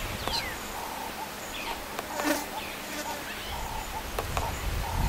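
Insects buzzing in short spells, with a few falling whistled bird notes near the start.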